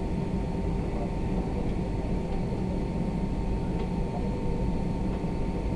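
Steady airliner cabin noise before takeoff: an even low rumble with a steady high whine running through it.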